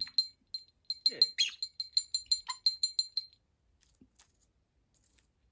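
Small metal toy bell rung repeatedly by a budgie, about four or five quick rings a second for roughly three seconds, then stopping.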